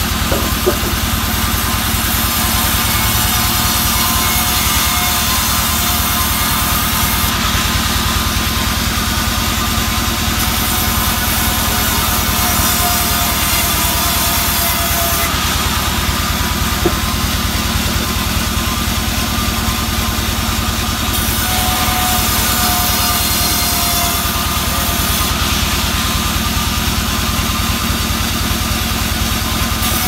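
Band saw resawing albasia boards into battens: the machine runs steadily with a loud drone, and the blade's cutting hiss grows and eases every few seconds as boards pass through.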